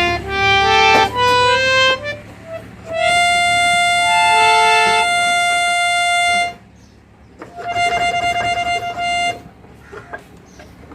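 A harmonium being played: a quick rising run of single reed notes, then a long held note with other notes briefly sounding over it, a short break, and another held note.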